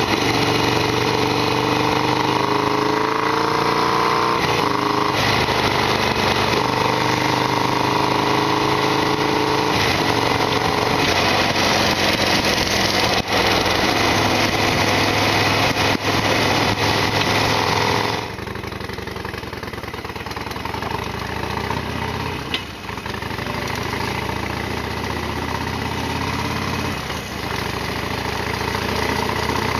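Harley-Davidson Sportster XL1200R's V-twin engine running under way, its pitch rising as it accelerates with a few gear changes in the first several seconds. About 18 seconds in it turns quieter and the rushing noise drops away, leaving the engine at a lower, steady run.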